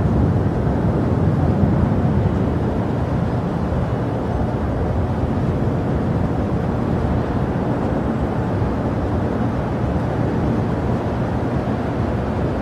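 Steady rumble of jet airliner engines, slightly louder in the first couple of seconds.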